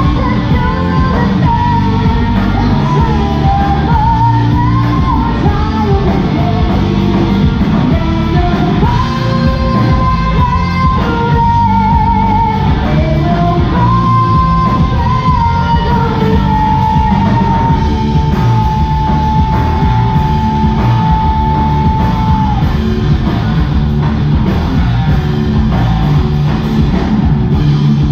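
A live rock band plays loud and steady: a woman sings lead over electric guitars, bass guitar and drums. The sung melody holds one long note for several seconds, ending a bit past two-thirds of the way through.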